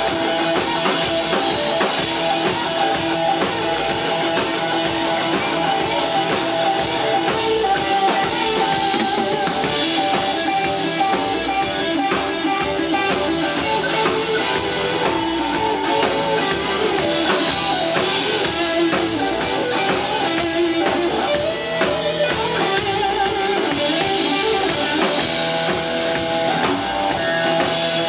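A live rock band playing: an SG-style electric guitar over a drum kit, with steady drum hits throughout.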